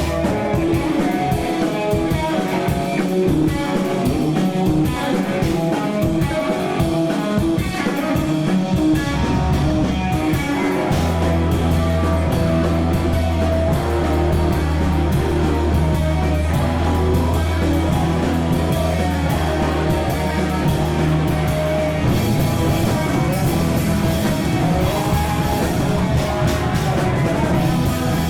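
A rock band playing live, with drum hits all through. A deep held bass line comes in about nine seconds in, and the playing shifts near the end.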